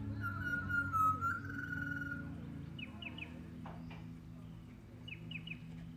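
Wild birds calling: a whistled call in the first two seconds, then sets of three quick falling chirps about every two seconds, over a steady low hum.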